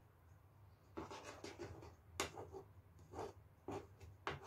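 Metal spoon scraping and tapping against a coated bundt pan as it swirls chocolate through cake batter. A faint series of short scrapes, about five main strokes, starting about a second in.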